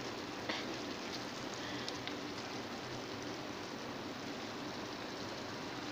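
Creamy chicken and bell pepper sauce bubbling and sizzling steadily in a non-stick frying pan at a rolling simmer.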